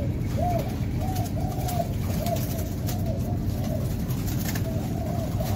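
Spotted doves cooing: a steady run of short arching coos, about two a second, over a constant low rumble.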